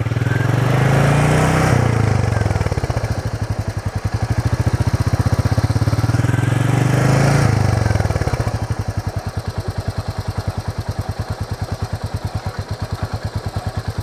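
Royal Enfield Meteor 350's single-cylinder engine running with the bike standing, revved up twice and settling back to a steady thump. Under it runs the repeating 'kat kat kat' ticking from the wheel's brake and ABS area, which the owner puts down to normal ABS action rather than anything rubbing.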